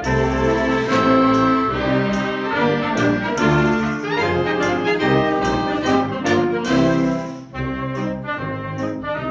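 A concert wind band playing live, with flutes, clarinets and saxophones over trumpets, trombones, euphoniums and tubas in full ensemble. The music dips briefly in volume about seven and a half seconds in.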